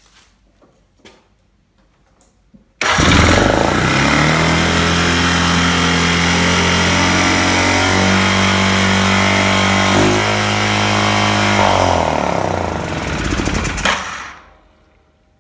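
2006 Arctic Cat 500 ATV engine catching suddenly and running fast for about eleven seconds. Its pitch steps up and down a few times before it dies away. It revs high because the carburetor-to-airbox hose is still missing.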